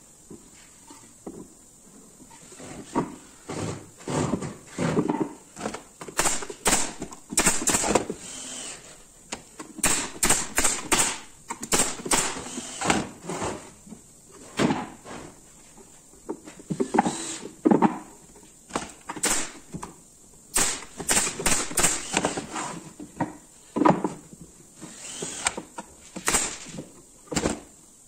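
Wooden pallet boards knocking and clattering against each other and against a wooden box frame as they are handled and fitted: a long series of sharp wooden knocks, some in quick runs of three or four.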